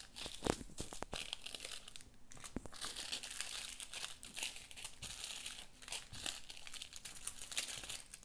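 Small plastic bags of diamond painting drills crinkling as they are handled and sorted, with scattered small clicks and taps.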